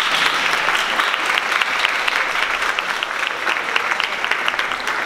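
Audience applauding in a hall, a steady wash of clapping with individual sharp claps from someone close by standing out.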